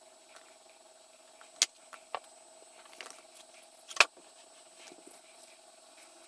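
A few sharp, light clicks and taps over a faint steady hum, the loudest about four seconds in, like small items being handled on a table.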